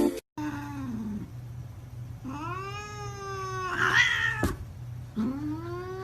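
A cat yowling in drawn-out meows: a short falling call, then two long calls that rise and hold their pitch, the first turning rough and loud near its end and cut by a sharp click.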